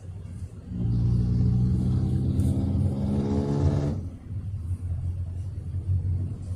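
Steady road rumble inside a moving car. About a second in, an engine drone comes in over it, holds for about three seconds, then cuts off sharply.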